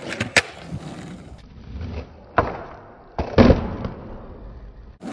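Skateboard wheels rolling on concrete, broken by sharp clacks of the board's deck and wheels hitting the ground. There are a couple of quick clacks right at the start, another about two and a half seconds in, and the loudest about three and a half seconds in.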